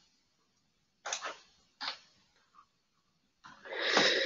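A few short clicks from a computer mouse, a double click and then a single one, then a louder breath-like sound about a second long near the end.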